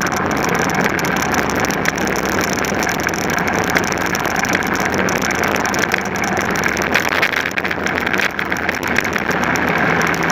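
Racing kart engine running hard at speed, heard through a camera mounted on the kart, mixed with wind noise and a dense clicking rattle from the chassis vibrating.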